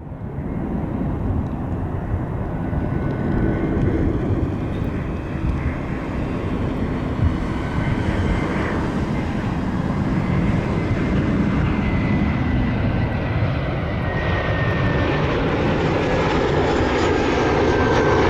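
McDonnell Douglas MD-11F freighter's jet engines at takeoff power: a steady jet rumble with a faint whine slowly falling in pitch, growing louder towards the end.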